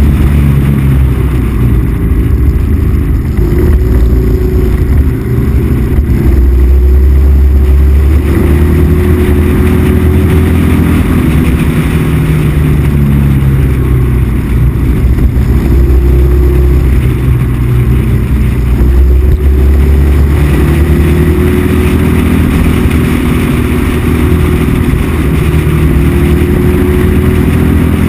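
Motorcycle engine running at road speed. Its revs climb and drop back several times as the gears change.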